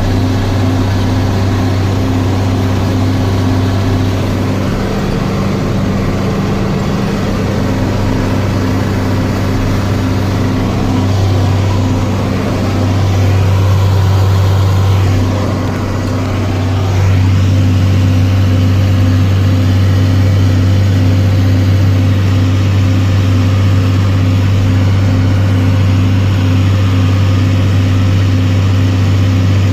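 John Deere 4440's six-cylinder turbo diesel running steadily under load, heard from inside the cab while pulling a round baler; its note wavers briefly about halfway through, then settles.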